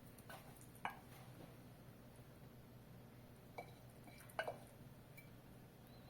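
A few light clinks of kitchenware, dishes or utensils knocking together, four short ones with brief ringing, over a faint steady hum.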